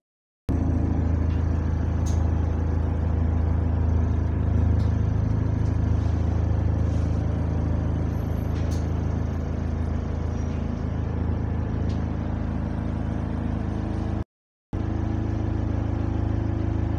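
Bus diesel engine heard from inside the passenger saloon, running steadily while the bus is under way. The sound cuts out completely twice, for about half a second each time.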